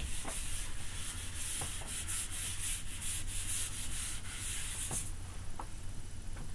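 Handheld whiteboard eraser wiping marker off a whiteboard: a dry, hissy rubbing in quick repeated strokes that stops about five seconds in.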